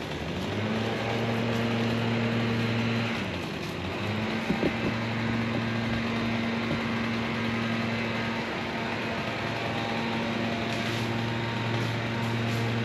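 An engine idling steadily, its pitch sagging briefly about three and a half seconds in and again near the end, with a couple of sharp knocks about four and a half seconds in.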